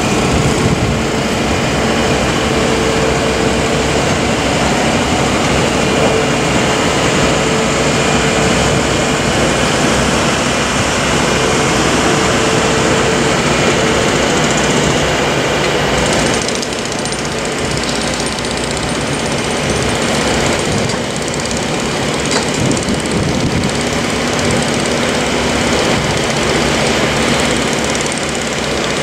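Construction-site machinery running: a loud, steady engine noise with a held tone through the first half. The sound changes and drops a little about 16 seconds in.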